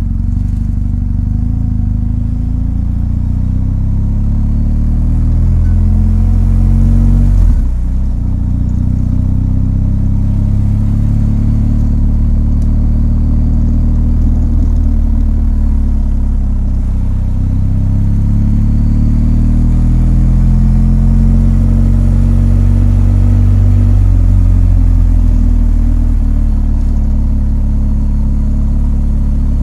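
BMW R1250 GS boxer twin engine running under way. Its note rises and falls with the throttle, with a sudden break about seven and a half seconds in, as at a gear change.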